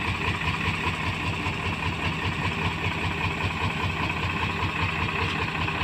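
Crash-damaged Mitsubishi Fuso truck's diesel engine idling steadily, with an even low pulsing and no revving. It is running on a makeshift throttle, a rope standing in for the throttle cable.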